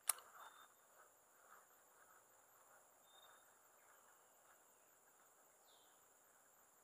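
Near silence: faint outdoor ambience with a steady high insect drone and a few brief, faint high chirps. A single sharp click comes right at the start.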